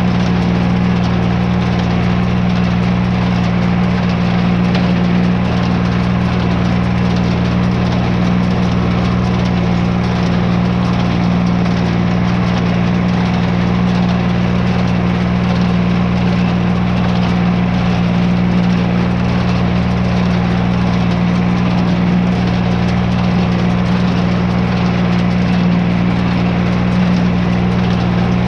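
Farm tractor engine running steadily at an even speed, with no change in pitch or load.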